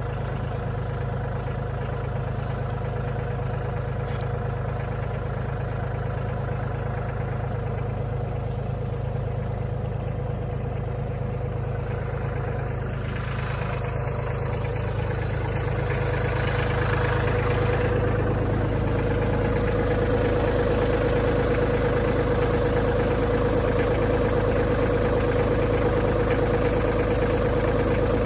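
Diesel engine of a piece of heavy farm equipment running steadily. About two-thirds of the way in it grows a little louder, with a steady whine above the engine note.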